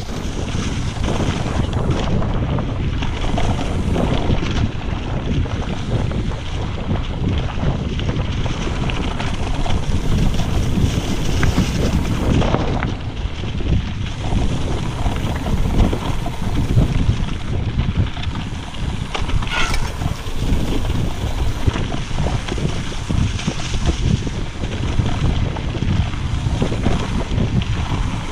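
Wind buffeting an action-camera microphone, mixed with the rumble and rattle of a mountain bike's tyres and frame on a rough dirt trail at downhill speed. A brief high squeak comes about twenty seconds in.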